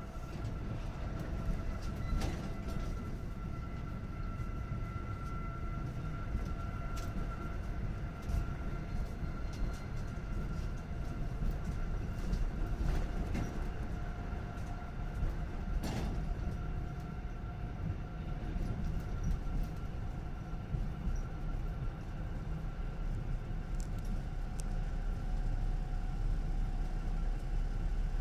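Train running along the track: a steady low rumble with a thin steady whine over it and a few scattered clicks.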